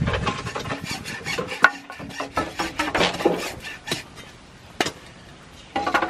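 Wood being worked by hand: irregular scraping, rasping strokes with a few sharp knocks.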